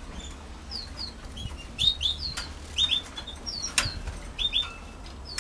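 Canaries in a wire cage giving short, repeated chirps, often in quick pairs, with wing flutters and sharp clicks as they move about the perches; the loudest click comes about two-thirds of the way in.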